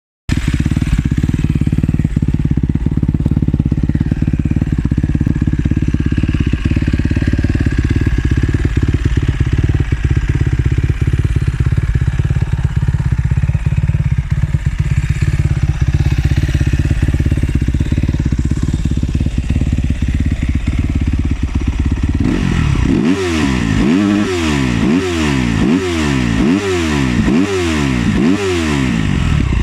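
SWM RS 300 R enduro motorcycle's single-cylinder four-stroke engine, fitted with an Arrow exhaust, idling steadily. About 22 seconds in, the throttle is blipped repeatedly, revving up and dropping back about once a second.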